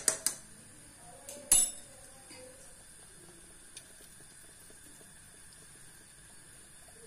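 Metal utensils clinking against an aluminium pot: a couple of sharp clinks at the start and a louder one with a short ring about a second and a half in, then only a faint steady background.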